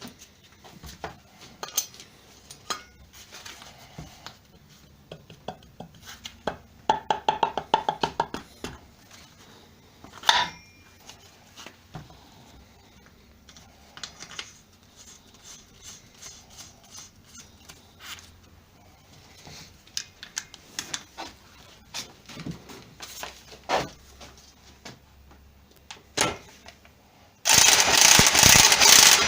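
Metal parts and hand tools being handled during the strip-down of a car alternator: scattered clicks and knocks, and a quick run of rattling clicks about seven seconds in. Near the end a loud, steady, noisy sound starts and keeps going.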